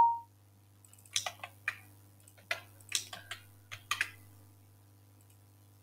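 Computer keyboard keystrokes: about a dozen sharp key clicks spread over three seconds, starting about a second in. Before them, a short electronic chime from a colour-palette web page's copy sound fades out.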